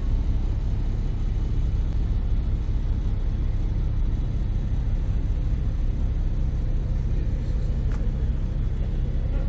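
Steady low rumble of a harbour ferry under way, heard from its open deck: the engine drone mixed with wind and water noise.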